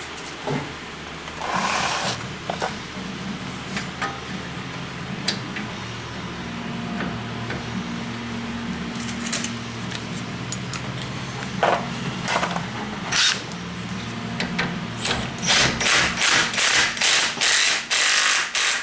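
A power tool runs the tie rod end's castle nut down in a quick string of short bursts near the end. Before that come scattered metallic clinks and knocks of tools and parts over a low steady hum.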